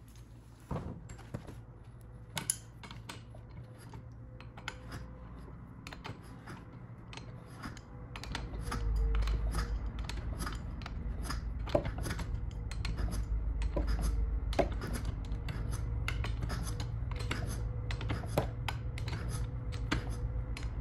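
A wrench on the clutch bolt of a 1971 Skiroule RT500's stiff, rust-bound engine, making scattered metal clicks and scrapes as the crank is worked back and forth to free it after lubricant has gone down the cylinder. A low steady hum comes in about eight seconds in and is the loudest sound from then on.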